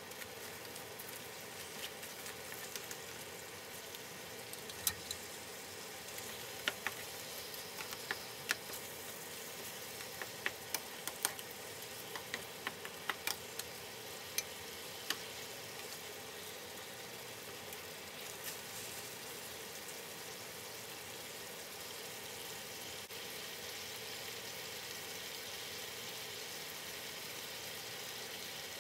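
Chicken breasts and greens sizzling in bubbling sauce in a skillet, a steady crackling hiss. From about five to fifteen seconds in, a wooden spatula stirring through the pan gives a string of sharp clicks and knocks.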